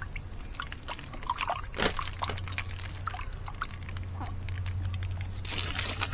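Water poured and splashed out of a camping mug in two short bursts, about two seconds in and near the end, with small clicks and knocks as the mug is handled.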